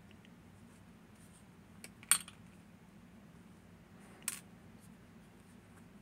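Two sharp clinks of small metal parts or tools being handled while a cam lock is taken apart, the first about two seconds in and louder, the second a couple of seconds later.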